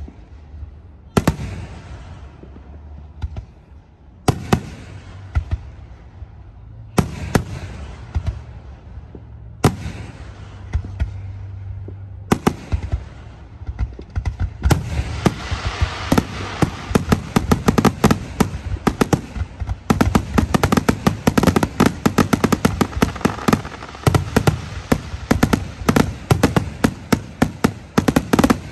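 Aerial fireworks shells going off: single loud booms every two to three seconds, then from about halfway through a rapid, continuous barrage of bangs.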